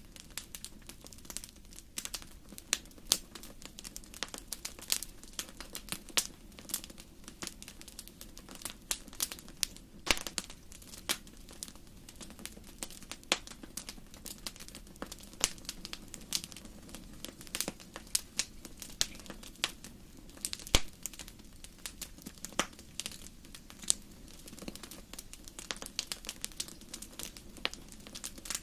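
Campfire crackling: irregular sharp pops and snaps, often several a second, over a faint steady low hum.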